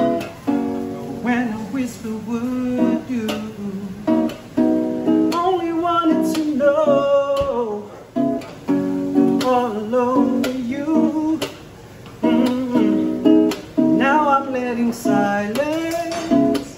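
Background music: a song with a voice singing over strummed guitar.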